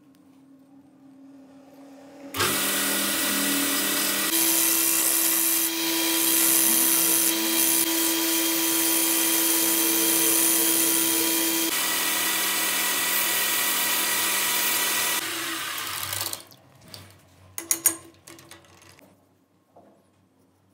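Wood lathe running while a turning chisel cuts the spinning wooden piece, a loud steady hiss of cutting over the machine's hum. It starts suddenly about two seconds in, stops and dies away about fifteen seconds in, followed by a few light knocks.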